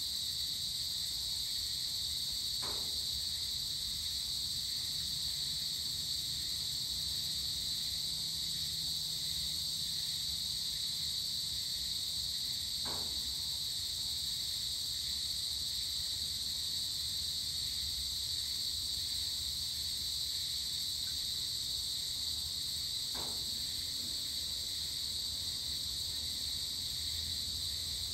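Steady, continuous chorus of crickets and other insects, a high shrill drone that doesn't let up. A faint short call sounds three times, about ten seconds apart.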